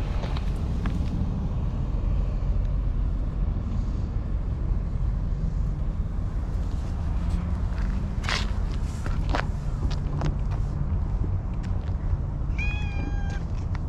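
A black-and-white cat meows once near the end, a short call, over a steady low rumble. A few brief scuffs and rustles come in the middle.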